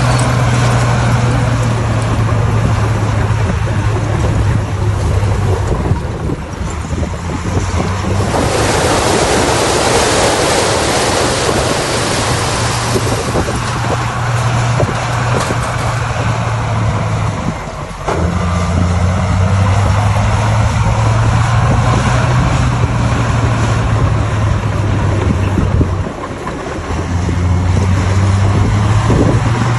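Bulldozer's diesel engine running under load, its pitch dropping and picking up again a few times, with a broad rushing, grinding noise swelling for several seconds about a third of the way in.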